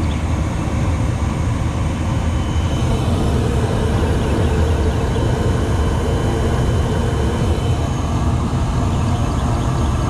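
Rheem gas package unit running with its burners lit: a steady low rumble of the gas flames and draft inducer motor.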